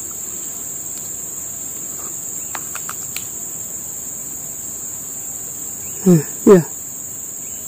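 Steady high-pitched insect chorus with a few faint clicks. About six seconds in, two short loud calls, each falling in pitch, come half a second apart.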